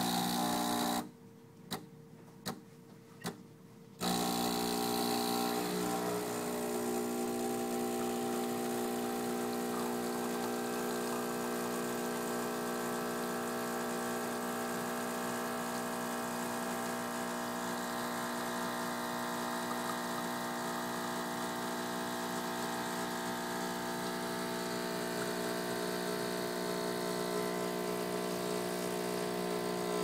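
Breville espresso machine's pump running steadily while brewing espresso, a continuous buzzing hum. It cuts out about a second in, with a few light clicks, and starts again about four seconds in.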